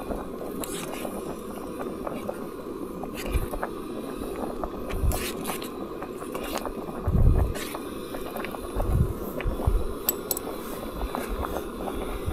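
Backpacking canister stove burner running steadily under a cooking pot, with a metal spoon scraping and ticking against the pot as it stirs. A few low thumps come through around the middle.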